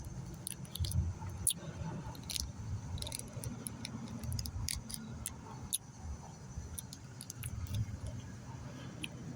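A person eating a chocolate bar close to the microphone: many small irregular clicks and crinkles over a low, uneven rumble of handling noise.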